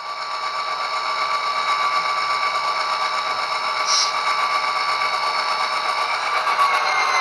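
HO scale Rapido VIA Rail F40PH-2D model locomotive running along the track, its motor and drivetrain whirring under the steady diesel engine sound from its onboard sound system. The sound fades in at the start, with a brief high blip about midway.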